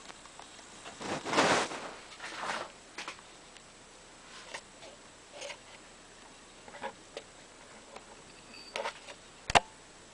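Handling noise from a handheld camera moving over a TV's circuit board: a rustle about a second in, scattered light clicks and taps, and one sharp click near the end, over a faint steady high-pitched tone.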